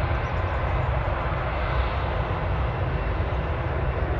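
Jet airliner engines running, a steady roar with a faint whine over a deep rumble.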